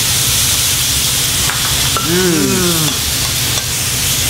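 Meat sizzling steadily on a tabletop Korean barbecue grill, a constant hiss over a low rumble. About two seconds in, a man's voice gives a brief falling hum.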